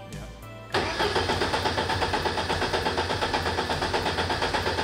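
Mercedes-AMG M133 turbocharged four-cylinder engine in a Mercedes 190E being cranked over on the starter, with a fast, even pulse. It starts suddenly just under a second in, during an attempt to get the engine to fire after its high-pressure fuel pump control was corrected.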